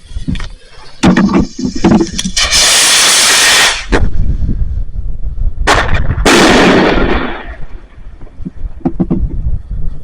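Fireworks going off: a few sharp bangs, then two long, very loud spells of hissing, crackling noise about two and a half and six seconds in, over a low rumble, with scattered pops near the end.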